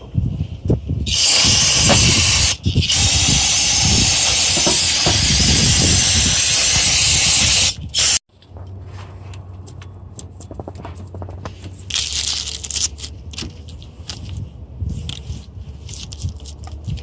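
Loud, steady spray hiss in two long bursts, with a brief break in between, cutting off sharply about eight seconds in. Then a quieter low hum with light clicks and knocks.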